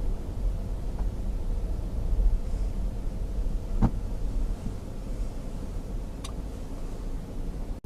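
A car driving, heard from its dashcam: a steady low rumble of engine and road noise, with a faint click about four seconds in and another near six seconds.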